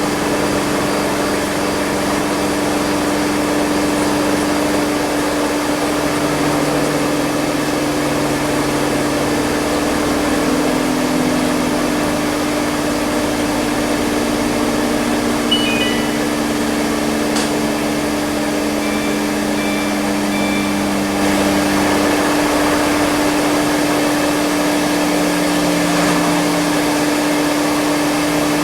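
Front-load washing machine in its spin cycle: a steady mechanical hum and rush. Lower motor tones slowly drift up and down in pitch as the drum speed changes.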